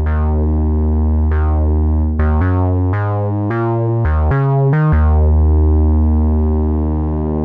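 Akai Timbre Wolf four-voice analog synthesizer playing a fat bass line. Held low notes, each opening with a bright attack that mellows, with a quick run of changing notes in the middle before it settles on a low held note again.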